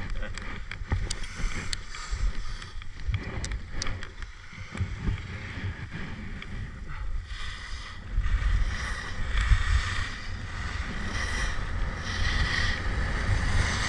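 Wind rumbling on a body-worn action-camera microphone with scattered clicks of skis and poles; from about eight seconds in, skis scraping over hard, icy snow in repeated hissing swishes of the turns as the wind rumble grows.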